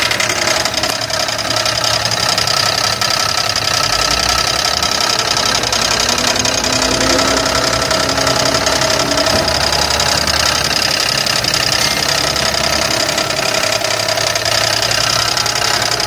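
3800 Series II 3.8-litre V6 running with a steady, rapid knocking from inside the engine. The owner takes it for a failed connecting-rod bearing on the crankshaft.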